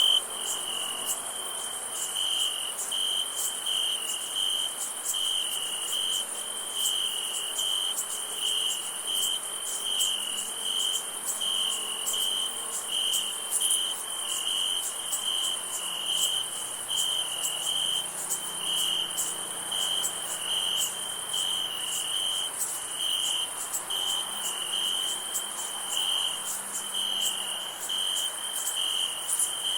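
Crickets chirping at night: a chirp repeating about once a second over a steady, high-pitched insect trill.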